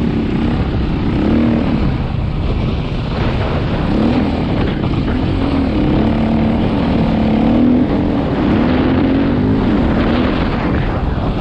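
Quad bike engine running under way, its pitch wavering up and down as the throttle is opened and eased. A dense, rough low rumble runs underneath throughout.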